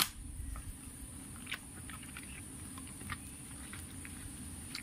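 Ripe peeled mango being squeezed and mashed by hand in a plastic tub: faint wet squelching with scattered small clicks as the pulp is crushed into puree.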